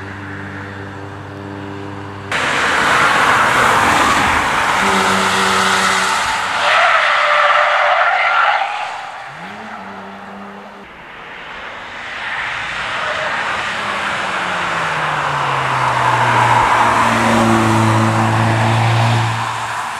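Cars driven hard on a wet race track: a loud rush of tyre noise with skidding sets in suddenly about two seconds in and lasts several seconds. After a lull, a second car approaches with its engine note falling in pitch and then holding steady under the tyre hiss.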